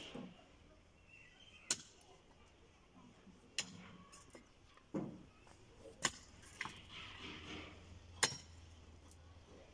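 Pickaxe striking hard, stony soil at a slow, steady pace: four sharp strikes about two seconds apart, with softer thuds of loosened earth in between.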